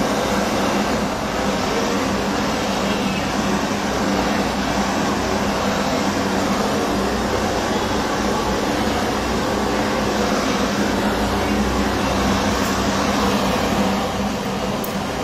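Handheld gas blowtorch burning with a steady, loud rushing hiss of flame.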